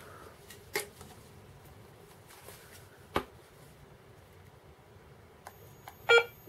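A couple of sharp plastic clicks as the Garrett ACE 250 metal detector's control box is handled, then near the end a short, loud electronic beep from the detector as it is switched on.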